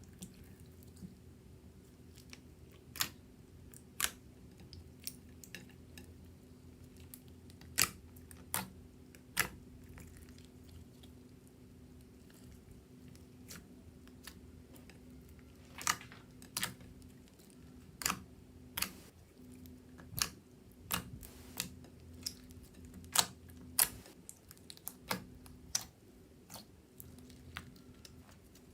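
Irregularly spaced sharp clicks or taps, a couple of dozen in all and more frequent in the second half, over a faint steady low hum.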